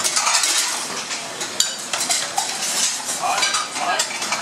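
Busy restaurant-kitchen clatter: metal pots, pans and utensils clinking and scraping on a stainless-steel line, with several sharp clinks.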